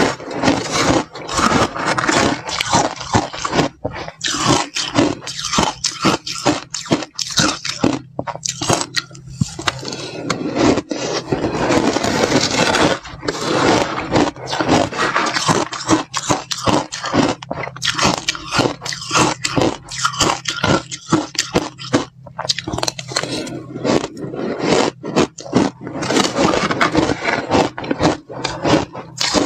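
Metal spoon stirring, scraping and scooping through a bowl of slushy ice, with dense, irregular crunching of the ice crystals.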